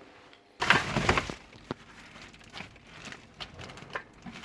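Hands rummaging through discarded items: a burst of rustling and crinkling about half a second in, then scattered light clicks and knocks as things are handled.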